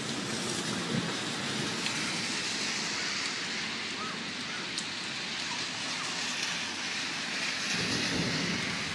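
Steady rain falling on a wet street, sidewalk and trees, an even hiss. A low rumble rises near the end.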